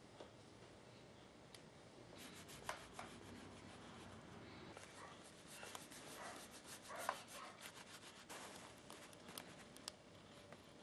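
Faint scraping of a hand tool worked along the edge of a leather shoe sole, in a run of short, quick strokes that starts about two seconds in.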